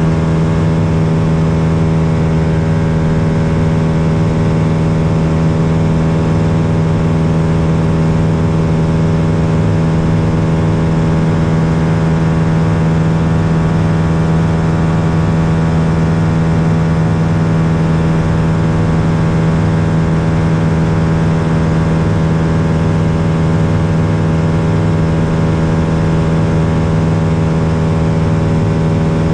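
Lake Buccaneer LA-4-200 amphibian's four-cylinder Lycoming engine and pusher propeller running at a steady power setting in flight on approach, a constant drone from inside the cabin.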